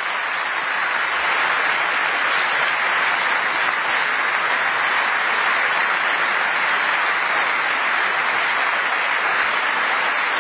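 A large audience applauding steadily, a sustained ovation with no break.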